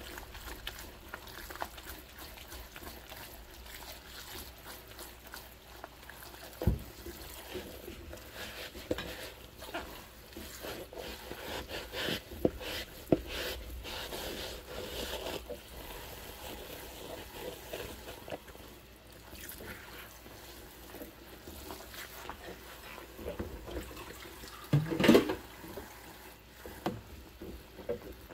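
Dishwashing in a sink full of soapy water: rubber-gloved hands scrub a plastic bowl, with irregular sloshing and splashing and scattered knocks. A sharp knock comes about seven seconds in, and a brief louder sound near the end.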